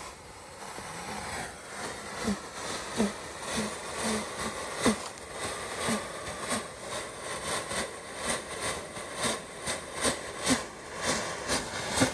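A smoke grenade burning on the ground: a rushing hiss that grows steadily louder, broken by irregular sharp pops and sputters, about two a second.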